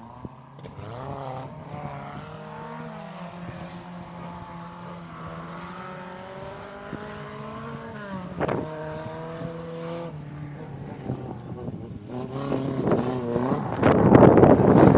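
Volkswagen hatchback rally car's engine at full throttle in the distance, climbing in pitch and dropping back at each gear change several times over. Near the end it grows loud as the car comes close.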